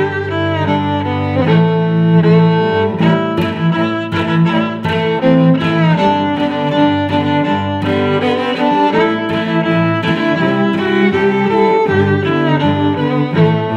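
Background music led by bowed strings, violin and cello, with notes changing often.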